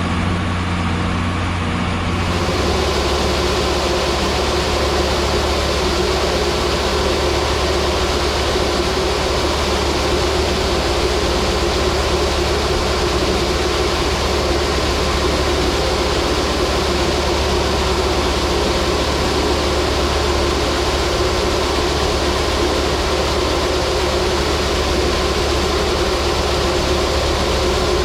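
Diesel engine of heavy harvest machinery running steadily under constant load. About two seconds in, the engine note shifts slightly lower and a steady hiss across the upper range grows louder.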